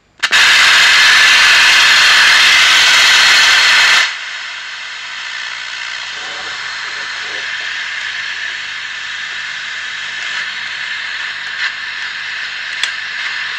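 Static hiss from an old wind-up radio's speaker, its circuit running off a bench power supply: the sign that the radio is powered and working. It is very loud at first, then drops sharply about four seconds in and carries on as a steady hiss.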